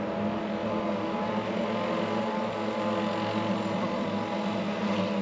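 A motor vehicle's engine running steadily, a low even hum with overtones.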